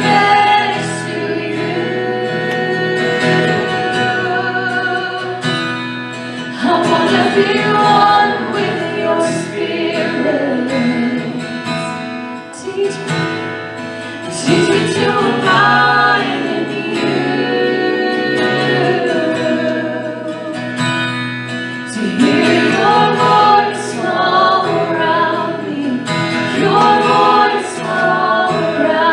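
Live worship music: a piano accompanying sung vocals, the singing coming in phrases about every seven seconds with short breaks between.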